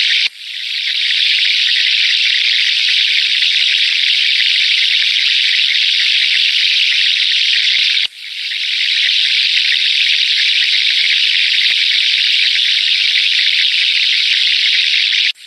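Recorded sound of flowing water playing in a loop as a steady high hiss. It cuts out briefly and fades back in twice, about eight seconds apart, where the loop restarts.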